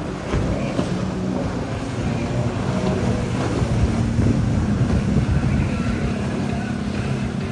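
Watercraft engine running steadily under way, a continuous low hum with water and wind noise over it.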